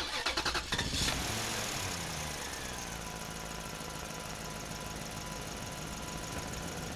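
Car engine running: the revs fall over the first couple of seconds, then it idles steadily.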